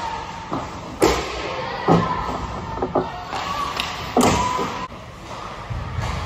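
Ice hockey play: a run of sharp knocks from sticks and puck striking the ice and the boards, four loud ones and a few lighter ones, each with a short echo off the rink.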